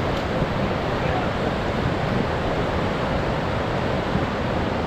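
Steady, unbroken rushing of a swollen, muddy river in flood after heavy rain.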